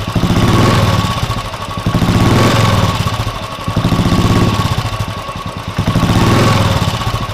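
Royal Enfield 350 single-cylinder engine running through a Swagman soft-bass aftermarket silencer, its throttle opened and eased off over and over so the exhaust note swells and falls about every two seconds.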